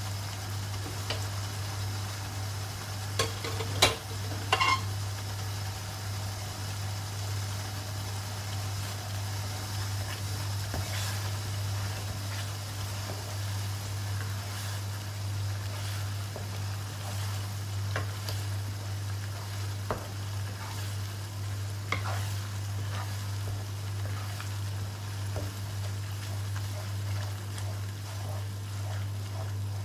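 Chili paste for sambal tumis frying in oil in a wok, sizzling as a wooden spatula stirs and scrapes it around the pan. A few sharp knocks, about four seconds in, are the loudest sounds, and a steady low hum runs underneath.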